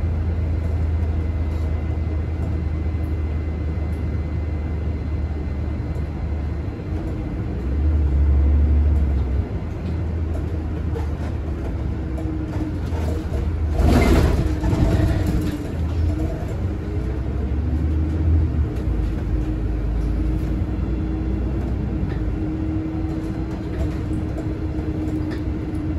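Solaris city bus driving, heard from inside the front of the cabin: a steady low engine drone with road noise. A brief loud thump comes about halfway through.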